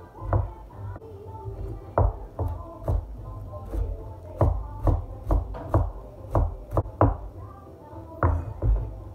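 Cleaver chopping fresh cilantro on a wooden cutting board: about fourteen sharp knocks at an uneven pace, bunched closest in the middle, with background music underneath.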